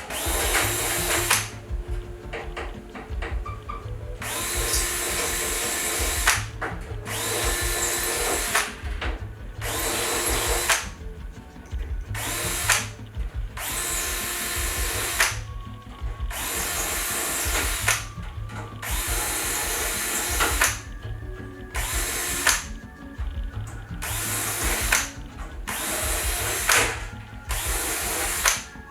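Power drill running in repeated short runs of a second or two with brief pauses between, as used with a deburring tool on the wing's aluminium parts.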